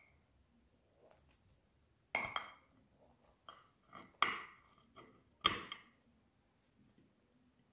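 Kitchen scissors cutting through a baked pizza crust: a series of sharp metallic snips and clinks with a short ring as the blades close and touch the ceramic plate, the loudest about two, four and five and a half seconds in.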